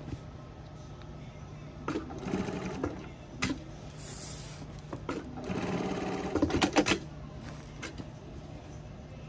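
Industrial sewing machine stitching through heavy uniform fabric in two short runs, one about two seconds in and a longer one starting about five and a half seconds in. Between the runs there is a steady low hum and a few sharp clicks.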